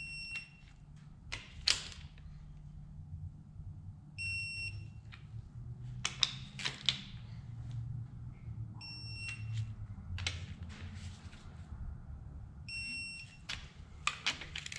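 Electronic torque wrench beeping as each cylinder head bolt on a 289 Ford small-block reaches its 60 lb-ft second-pass setting: four short, high beeps about four seconds apart. Each beep is followed by sharp ratchet clicks as the wrench is reset for the next bolt.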